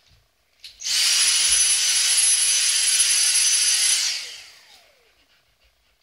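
Dyson vacuum cleaner switched on for about three seconds, running with a high-pitched whine over the rush of air, then switched off, its motor whine falling as it spins down.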